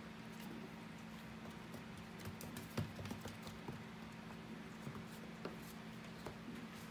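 Faint scattered clicks and taps from mini goldendoodle puppies playing and mouthing at an Old English Sheepdog, the loudest a little under three seconds in, over a steady low hum.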